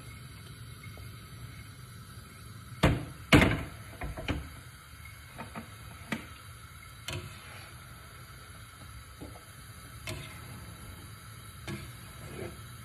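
A metal frying pan knocks twice sharply against the gas hob's grate about three seconds in. Lighter clicks and taps of pan and utensils follow, over a faint steady hiss.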